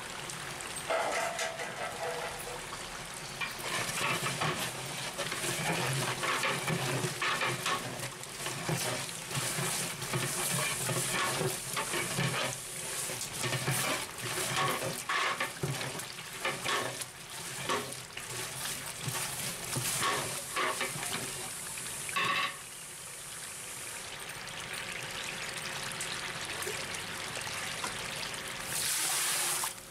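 Long-handled ladle stirring a large metal pot of watery masala: liquid sloshing, with irregular knocks and scrapes of the ladle against the pot through about the first two-thirds. The stirring then gives way to a steadier simmering hiss, with a brief louder hiss near the end.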